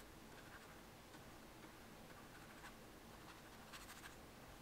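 Faint strokes of a wet paintbrush across sketchbook paper, blending water into wax pastel swatches: a few brief scratchy brushing sounds, the clearest near the end, over near silence.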